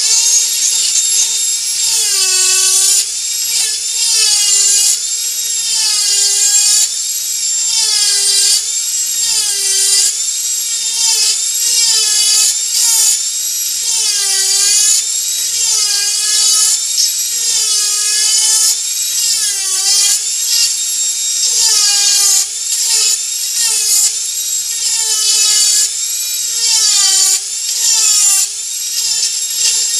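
Dremel 4000 rotary tool running through its flex shaft, with a burr carving soft driftwood: a steady high-pitched whine. Its pitch dips and recovers about once a second as the burr is pressed into the wood and eased off.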